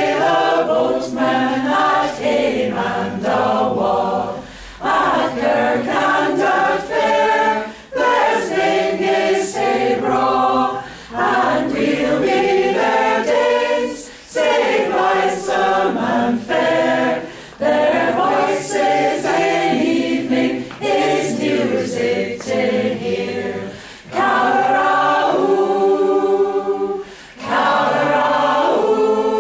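Community choir singing a cappella, in phrases a few seconds long with short breaks for breath between them.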